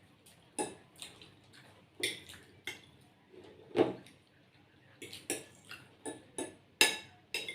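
Cutlery clinking against plates in short, irregular clicks during eating, loudest about four seconds in and again near the end.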